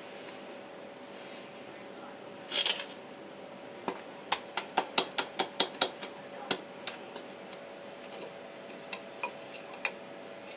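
A syringe and a bird's skull being handled in a porcelain sink: a brief hiss about two and a half seconds in, then a quick run of sharp clicks and taps, about four a second, and a few more near the end, over a steady low hum.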